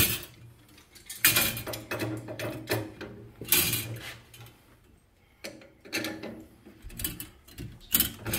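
Irregular metallic clicking and scraping of tools on threaded gas pipe fittings as a gas line is screwed together, with short ratchet-like runs.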